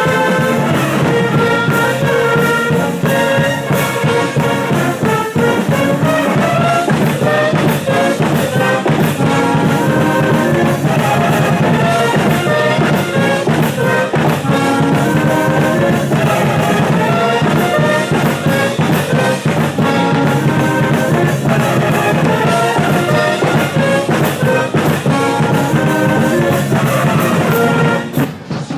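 College band music led by brass, with trombones and trumpets playing a lively tune over a steady low bass line. The music falls away just before the end.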